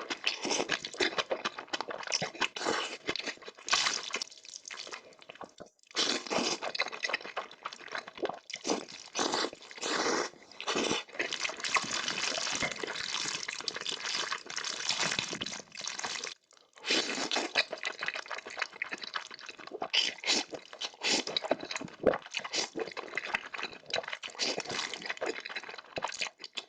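Close-up eating sounds: wet slurping of noodles and chewing, with many quick smacking clicks and two short pauses.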